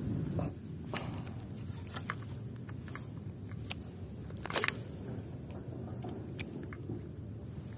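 Footsteps on a sandy, muddy riverbank and handling noise, over a steady low rumble, with scattered light clicks and one sharper knock about four and a half seconds in.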